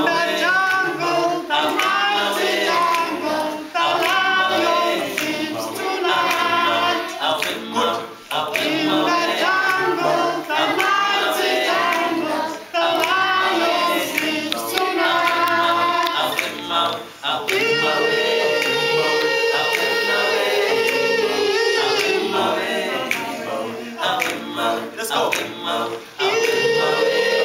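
A men's a cappella vocal group singing in harmony with no instruments. Short sung phrases come first, then from a little past halfway the group holds a long chord for several seconds, takes a brief break, and holds it again near the end.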